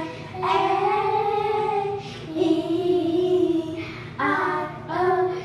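Children singing long held notes in high voices: two long notes, then two shorter ones near the end, in a tiled restroom.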